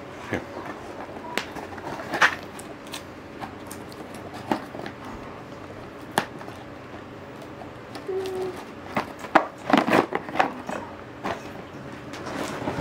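Scattered clicks and knocks of small hard objects being handled, with a denser run of clatter about nine to ten and a half seconds in.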